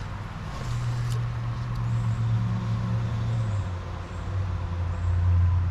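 A low engine drone, its pitch stepping to a new level about a second in and again about halfway through.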